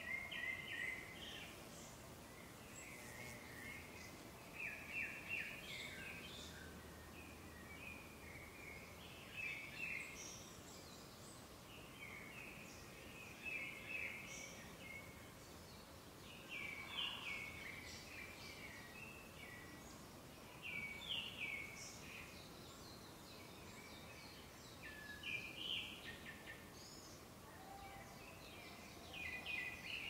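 Black paradise flycatcher singing: short phrases of quick chirping notes, repeated every three to four seconds, over a faint steady forest background.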